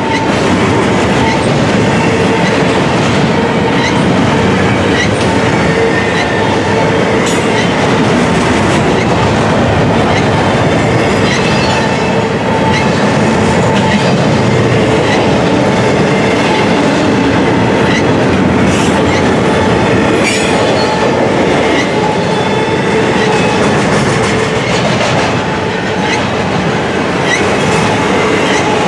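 Freight cars of an intermodal container train rolling steadily past, wheels clicking over the rail joints, with a faint steady squeal of wheels on the rail.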